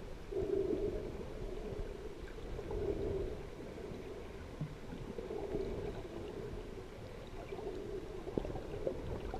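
Muffled underwater noise picked up by a camera in a waterproof housing while swimming just below the surface, a dull rushing that swells about every two to three seconds, with a few faint ticks.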